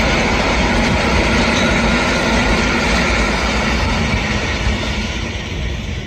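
Polish EN57 and EN71 electric multiple units running past on the line: a steady noise of wheels on rail, which fades over the last second or two as the final car goes by.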